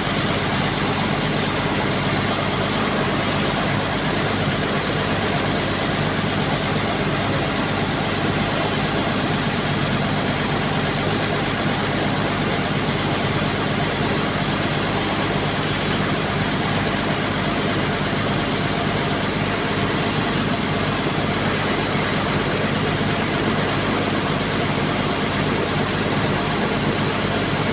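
Bulldozer's diesel engine running steadily at an unchanging speed.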